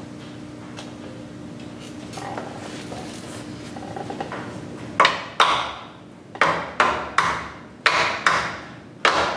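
Hammer blows knocking wooden shims tight between a jack stand and a truck frame: about eight sharp strikes, mostly in quick pairs, starting about five seconds in, each dying away quickly.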